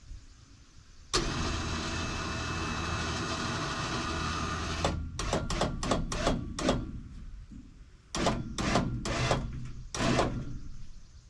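Winch running under load as it pulls a heavy, wet red oak log: it starts suddenly about a second in and pulls steadily for about four seconds, then is run in a string of short on-off bursts.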